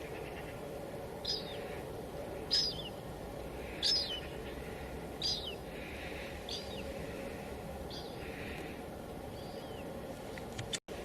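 A bird calling over and over, a short call falling in pitch roughly every second and a quarter, over a steady noise bed. The whole sound cuts out for an instant near the end.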